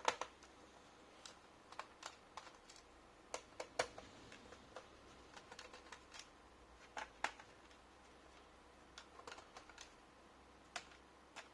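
Faint, irregular small clicks and taps of a screwdriver and screws against a laptop's plastic case as the last screws are taken out of the underside.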